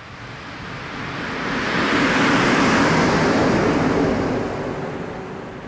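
Pass-by of two coupled electric locomotives, HŽ class 1141 no. 1141 043 leading, running with no wagons: the wheels-on-rail rumble grows, is loudest about two and a half seconds in, and fades as they move away.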